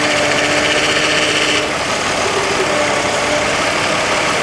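2003 Chevy Trailblazer engine idling while the steering wheel is turned back and forth, working the power steering pump to bleed air from the freshly repaired line. A steady hiss over the engine stops about a second and a half in.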